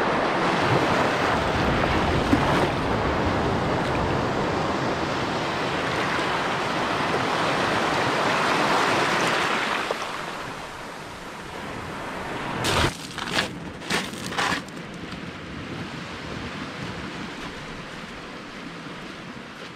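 Shallow surf washing up over sand at the water's edge, close and loud for about the first ten seconds, then a quieter, steady wash. About two-thirds of the way through come four sharp knocks in quick succession.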